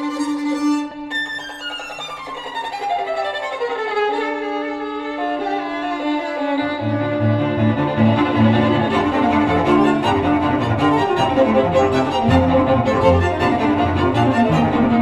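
Violin music played back over hi-fi loudspeakers: a held note, then a falling run, with cello-like low strings joining about halfway through.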